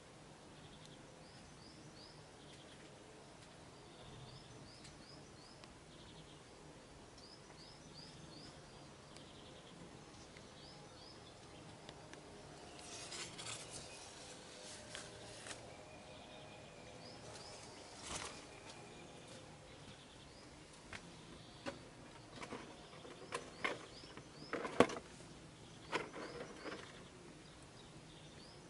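A small bird chirping, short groups of three or four high chirps repeating every few seconds over a faint steady background. In the second half, clicks and rustles come and go, the loudest a single sharp click near the end.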